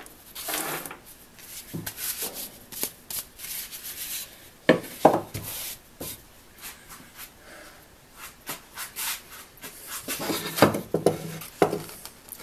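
Gloved hands rubbing and handling a wooden hand-saw handle on a plywood workbench: irregular scuffs and scrapes with a few light knocks, loudest about five seconds in and again near the end.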